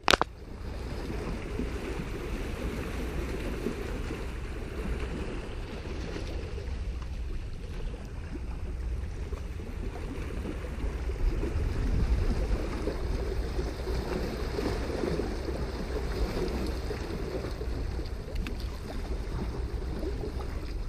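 Steady wind rumbling on the microphone, with small waves lapping against the shoreline rocks.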